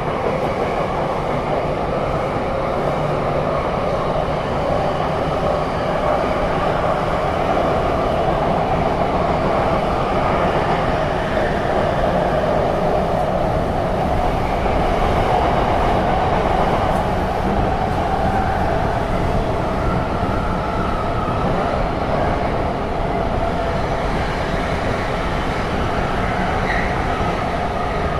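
Tokyo Metro 7000 series train (set 7120F) running between stations, heard from inside the passenger car: steady wheel and running noise with no break or stop.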